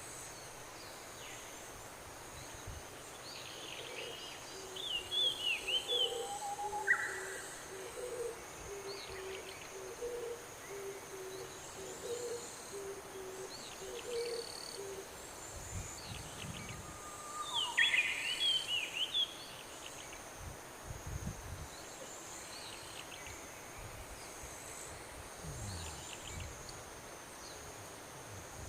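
Outdoor animal ambience: a bird repeats a low hooting call about once a second for roughly ten seconds, while other birds give brief higher chirps and insects keep up a steady high drone. A few dull low knocks come in the second half.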